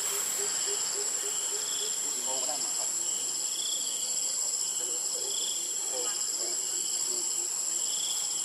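Chorus of forest insects: a steady high-pitched drone with a pulsing trill that swells and fades about once a second.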